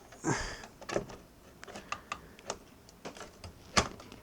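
Irregular clicks and knocks of hardware being handled as a graphics card is fitted into a PC case, with a brief scrape near the start and the sharpest knock near the end.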